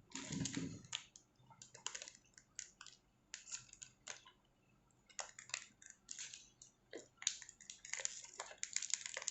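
Paper and plastic packaging being folded and handled by hand, with irregular short rustles and crinkles that pause briefly in the middle.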